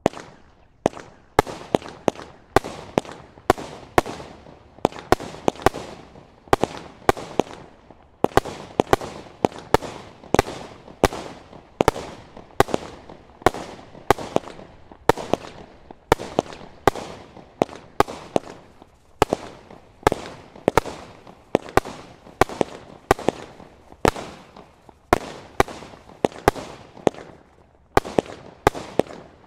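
A Standard Fireworks Witchcraft single-ignition cake firing its shots one after another: sharp bangs about two a second, each trailing off briefly, with no let-up.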